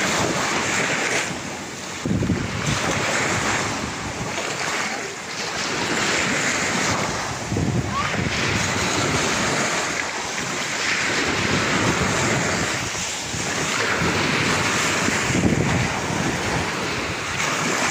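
Small waves washing up and breaking on a sandy beach, swelling and easing every few seconds, with wind buffeting the microphone.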